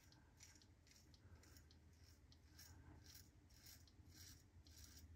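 Faint, short scratching strokes of a Tatara Nodachi double-edge safety razor cutting lathered beard stubble, about two or three strokes a second.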